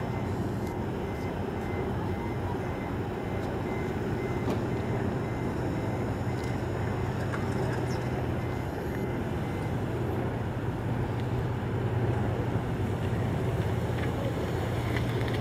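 Aircraft tug's engine running steadily under load as it tows a Boeing 777-300ER, a continuous low drone.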